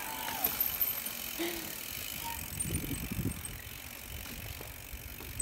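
Mountain bike rolling on a paved road with tyre noise, its rear freehub ratcheting as it coasts.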